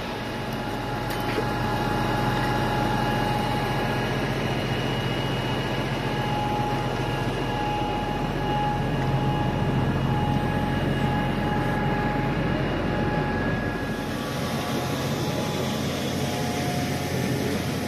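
Fire engine's engine and pump running with a steady drone, drafting water from the canal through a hard suction hose. The sound shifts about fourteen seconds in.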